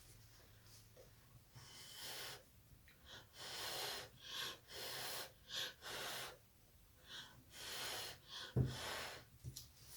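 Short puffs of blown air, about a dozen in quick, uneven succession, blowing wet acrylic paint across the canvas; one dull knock near the end.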